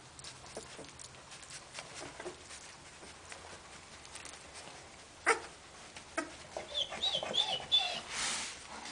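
Two-week-old puppies crawling on a blanket: faint rustling and small taps, then, from about six and a half seconds in, a run of short, high squeaks and whimpers.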